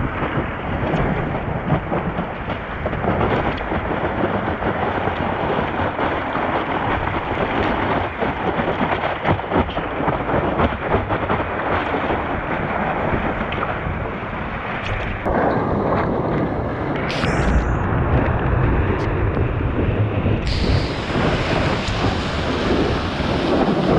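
Whitewater rushing and spraying over a stand-up paddleboard's nose-mounted camera as the board rides a breaking wave, with wind buffeting the microphone. It makes a loud, continuous rushing hiss over a deep rumble.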